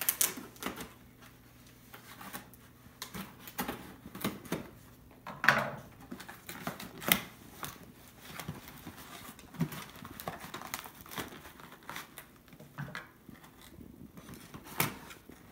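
Scissors cutting into a cardboard shipping box: irregular sharp snips and clicks mixed with cardboard scraping and crinkling as the flaps are worked open.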